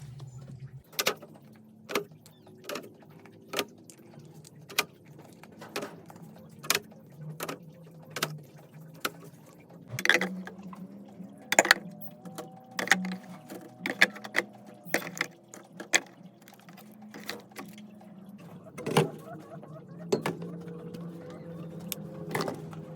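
A series of sharp knocks or taps, roughly one a second, over a low steady hum.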